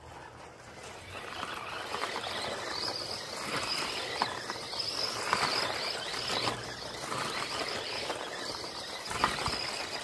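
Remote-control car driving hard in loose dirt: a high buzzing motor whine under the hiss of spinning tyres churning soil, with scattered clicks of flung dirt and stones. It builds over the first couple of seconds and stays loud.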